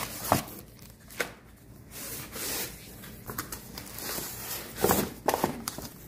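Cardboard box and plastic packaging being handled: scattered rustling with a few sharp knocks, loudest in a cluster about five seconds in.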